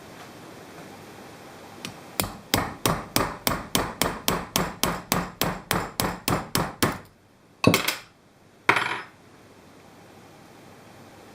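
Hammer blows on the metal retaining ring of a CNC router spindle shaft, trying to break a Loctite-locked ring free: a fast, even run of about eighteen blows, then two harder single blows about a second apart.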